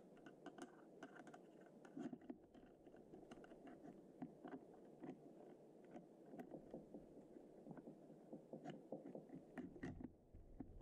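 Faint, scattered small clicks and scrapes of metal parts being handled: a no-go headspace gauge and bolt carrier being worked into an AR-15 upper receiver by hand.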